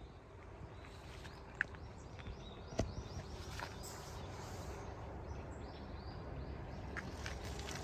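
Birds chirping in a series of short, high calls over a steady outdoor background, with a few sharp clicks or knocks scattered through.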